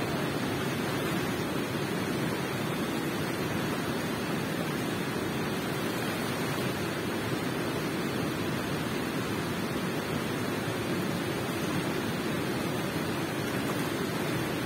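Water running in a cave: a steady, even rush that never changes, heaviest in the low middle.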